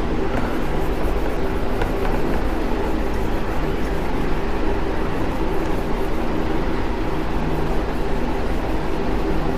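A whiteboard duster rubbing across a whiteboard in repeated wiping strokes, erasing the written working. Under it runs a steady background hum.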